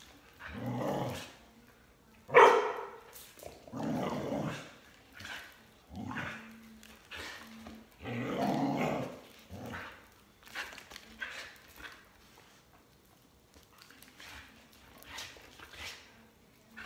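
Border collie growling and barking in short, uneven bursts as it snaps at a swinging jump rope, with one sharp, loud bark about two and a half seconds in. The bursts grow fainter and sparser near the end.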